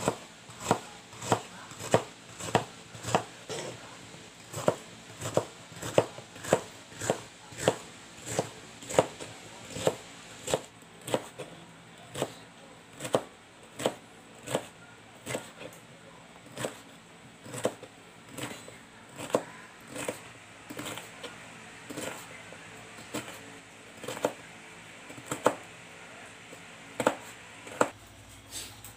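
Kitchen knife slicing bitter melon into thin strips on a white cutting board: a steady run of sharp knife taps on the board, about one to two a second, stopping near the end.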